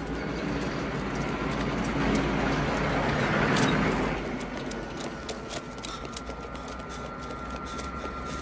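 Jet aircraft engine noise, swelling to a peak about three and a half seconds in and then easing off, leaving a steady high engine whine.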